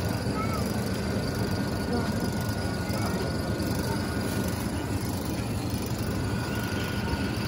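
Steady background din of a busy market, with a faint steady high whine and a few brief faint chirps.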